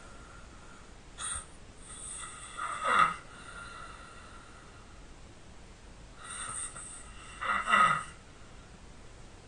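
A sleeping person snoring loudly: two snores about five seconds apart, each building to a loud peak near its end.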